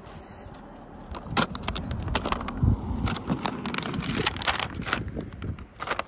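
Masking tape being peeled off a car's rear window while the paper sign crinkles: a dense run of sharp crackles and scrapes starting about a second in.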